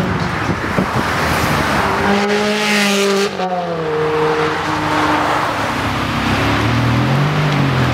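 Ferrari 360 Challenge Stradale's V8 engine accelerating hard, its revs climbing and breaking off sharply about three seconds in. The engine note then drops and climbs again near the end.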